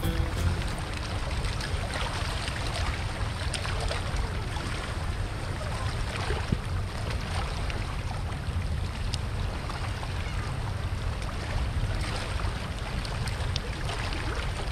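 Spillway water flowing and lapping close to the microphone: a steady rush with a low rumble underneath and a few faint ticks.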